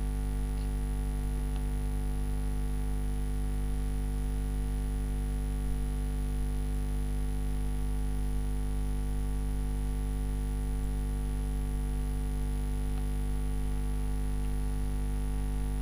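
Steady electrical mains hum with its evenly spaced overtones and a thin high whine, unchanging throughout.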